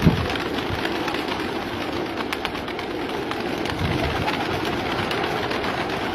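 A large flock of domestic pigeons cooing together in a steady, dense chorus, with one short thump right at the start.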